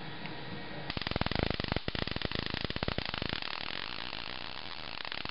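High-voltage sparks snapping across a foil spark gap in a rapid, continuous crackle, starting about a second in. The gap is fed by a television's 30,000-volt CRT anode supply charging a homemade wine-bottle capacitor.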